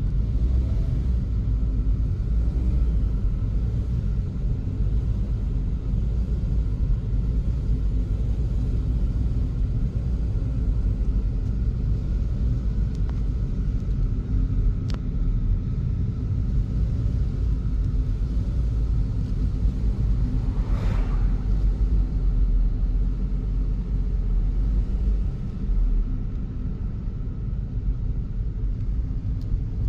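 Steady low rumble of a vehicle on the move: engine and road noise at an even pace.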